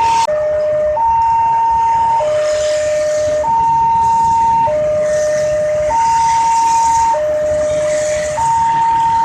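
Railway level-crossing warning siren sounding through its horn loudspeaker, newly fitted. It sounds a two-tone hi-lo call that switches between a higher and a lower steady tone about every 1.2 seconds. This is the crossing's warning that a train is approaching.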